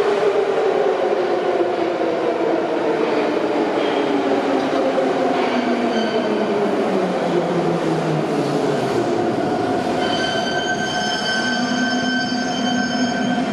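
Electric metro train braking into a station: the whine of its traction motors glides steadily down in pitch as it slows. About ten seconds in, once the train has come to rest, a steady low hum and several high-pitched whining tones hold on.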